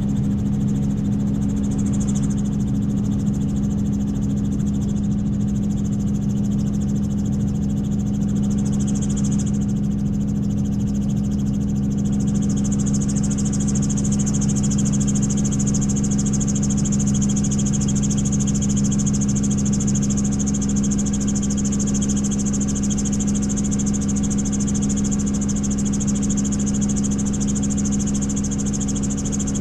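Helicopter running steadily: a low drone of steady tones with a thin high whine over it, the whine growing stronger about twelve seconds in.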